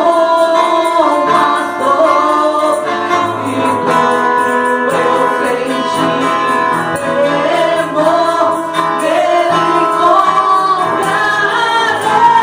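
A church praise group singing a gospel worship song together, several voices over musical accompaniment.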